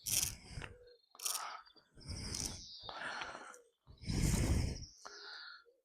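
Irregular bursts of rumbling noise on the microphone, several in a row with the longest a little past halfway, while birds chirp in the background.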